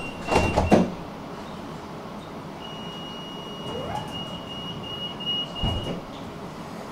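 Tram interior sounds: a couple of loud knocks about half a second in, then a steady high-pitched tone lasting about three seconds, a short rising whine around the four-second mark and a low thump near the end of the tone.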